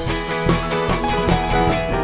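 Live rock band playing an instrumental jam: electric guitars, electric bass and drum kit, with sustained guitar notes over a steady beat.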